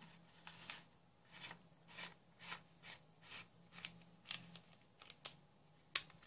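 Plastic screw-on head cap of a solar LED torch being turned onto its plastic body, the threads rasping in short strokes about twice a second, with a sharper click near the end.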